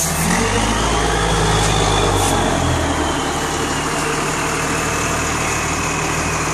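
Turbo-diesel engine of a Volkswagen 17-210 bus running, its Garrett turbocharger fitted with a 'pente' so that it whistles ('sings'). The high whistle rises over the first two seconds, then slowly drops back as the engine settles.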